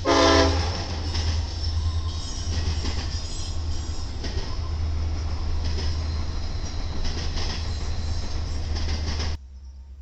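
Train passing on the rails: a brief locomotive horn blast at the start, then steady rumbling and wheel noise over a low engine hum, cutting off abruptly near the end.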